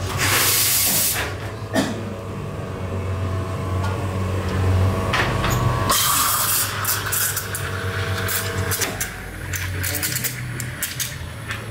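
Commercial espresso machine pulling a shot: its pump hums steadily while espresso runs into the cup. A loud hiss at the start lasts about a second, another hiss comes about six seconds in, and light clicks and clinks of cups and metal follow.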